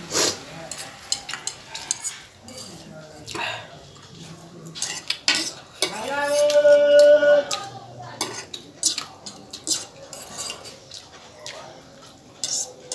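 Utensil clicking and scraping on a plate as noodles are eaten, in many short strokes. About six seconds in comes a held vocal sound of a second or so, the loudest part.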